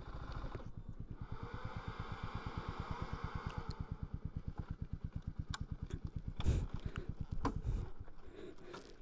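Motorcycle engine idling with an even low pulsing of about ten beats a second, with a few sharp knocks in the second half. The bike has just been brought to a stop to park.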